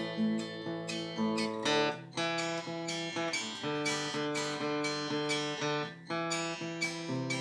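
Acoustic guitar strummed in an instrumental break between sung lines, with the chord changing about two seconds in and again about six seconds in.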